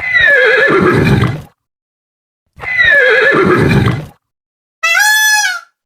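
A horse whinnying twice, the same call each time, starting high and falling away into a quavering, lower end. Near the end comes a short, high, steady-pitched call of another animal.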